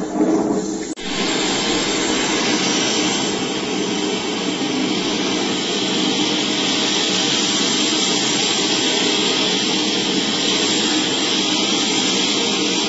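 Sea waves roaring: a steady, loud rushing noise that begins after a short break about a second in.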